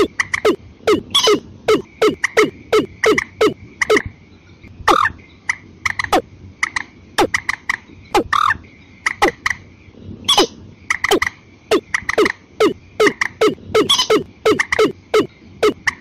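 Watercock and common moorhen calling together, as played on a bird-lure recording: quick runs of short, hollow notes that slide downward, several a second, in bursts with brief gaps. A steady faint high tone sits behind them.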